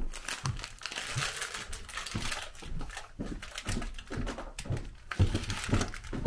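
A plastic snack bag crinkling and rustling as it is carried, over footsteps on wooden stairs at about two steps a second.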